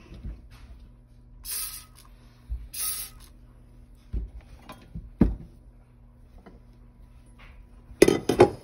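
Two short hissing squirts from a spray bottle of enzyme cleaner into a stainless steel pot, about a second apart, followed by a few light knocks. Near the end comes the loudest sound: a quick clatter of the metal pot being handled and set down.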